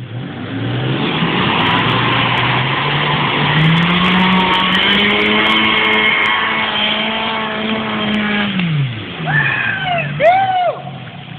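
1999 Kia Sportage's four-cylinder engine revving hard as it drives through a mud hole: the pitch climbs over the first few seconds, holds high, then drops away about nine seconds in, over the wash of muddy water being churned up.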